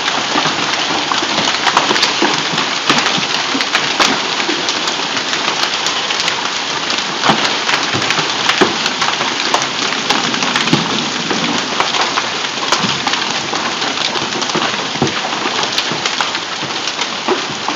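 A hailstorm with heavy rain: a dense, steady hiss of falling rain, peppered throughout with sharp clicks and knocks of hailstones striking the ground and the house.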